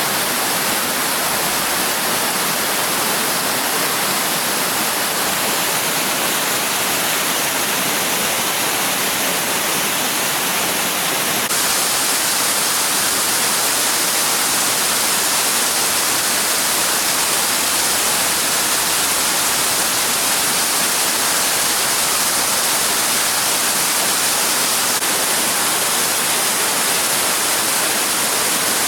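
Steady rush of water from a spring-fed waterfall pouring among winter ice. The hiss shifts slightly about eleven seconds in.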